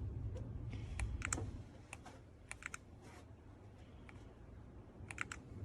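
Keystrokes on an AULA F75 mechanical keyboard with pre-lubed Reaper switches: scattered, irregular key clicks rather than steady typing, with a quick cluster near the end.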